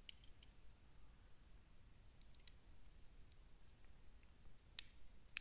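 Quiet room with faint, scattered light clicks, then two sharp clicks near the end.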